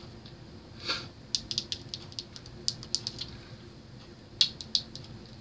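Fidget Cube being fidgeted in the hand: a short rasp about a second in, then a string of small sharp, irregular clicks from its buttons and switches.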